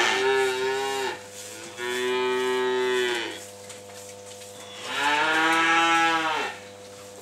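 Holstein calves mooing: three long calls with pauses between them, the first already under way as the sound begins. A faint steady hum runs underneath.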